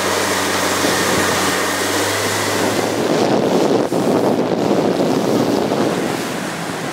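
Motorboat engine running steadily under way, with wind buffeting the microphone and water rushing past the hull of a rigid inflatable boat. About three seconds in, the engine hum fades under louder wind and water noise.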